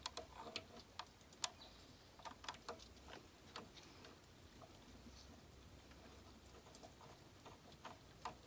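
Faint, scattered metallic clicks and ticks from a socket wrench and extension working the bottom bolt of the vacuum pump, thicker at first and sparser later.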